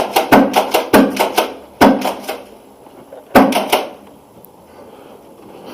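PolarStar F2 HPA airsoft replica firing a rapid string of sharp shots, about six or seven a second, for the first two seconds, then a second short string about three and a half seconds in.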